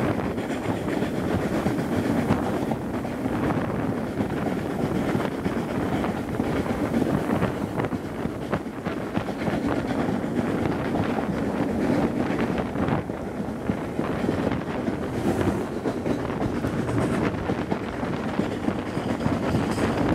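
Steam-hauled passenger train running along the line, heard from an open carriage window: steady rumble of the coaches' wheels on the rails with small rattling clicks, and wind buffeting the microphone.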